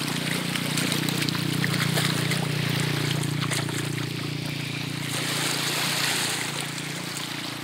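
Small lake waves lapping and splashing at the shoreline, a steady watery wash that swells briefly about two thirds of the way through.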